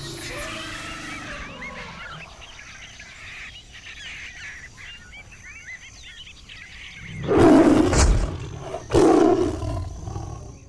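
Jungle ambience with birds chirping faintly, then a big cat roaring twice, loudly, about seven and nine seconds in.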